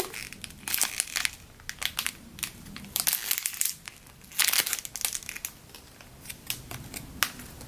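Crisp clear plastic packaging bag crinkling in short, irregular crackles as hands squeeze a soft foam squishy inside it.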